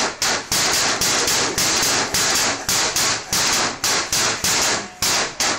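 Wooden table shaken and banged by a toddler gripping its rail: a fast, regular series of loud clattering knocks, about four a second, with a plastic sippy cup jostling on the tabletop.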